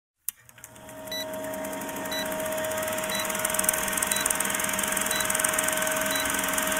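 Film-countdown sound effect: an old film projector's steady whir and fast clatter, fading in over the first second, with a short high beep once a second as the numbers tick down.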